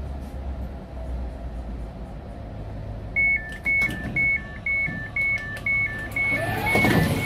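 Door warning beeps of a Stadler FLIRT Class 755 train after the door-open button is pressed: an alternating high-low two-tone beep, about two pairs a second, starting about three seconds in, over the train's low hum.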